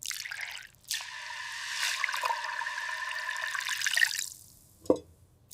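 Water pouring in a steady stream for about three seconds, then a short rising swoosh near the end.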